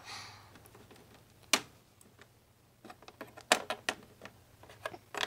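Hard plastic toy pet figures and toy furniture tapping and clacking on a plastic dollhouse floor as they are moved by hand: about six sharp, irregular clicks, one about a second and a half in and a quick cluster in the last two seconds.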